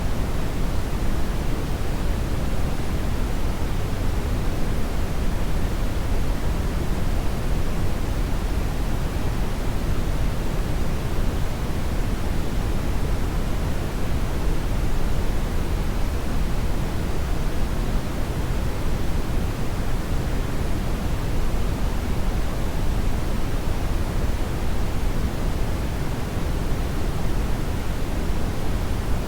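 Hair dryer blowing continuously: an even, unchanging rush of air, heaviest in the low end, with no distinct pitch.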